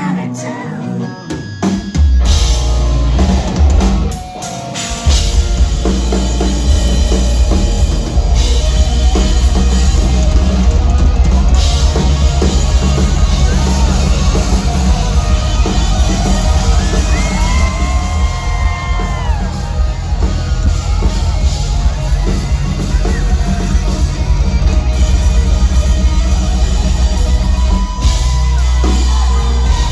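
A rock band playing live and loud: drum kit, electric guitars and bass, with no singing. The full band comes in about two seconds in, drops briefly a couple of seconds later, then plays on at full force.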